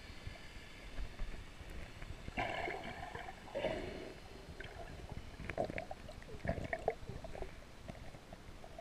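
Muffled underwater sound picked up by the camera: low rumbling water noise with gurgling, bubbling bursts a few seconds in and scattered knocks and short bubbly bursts after that.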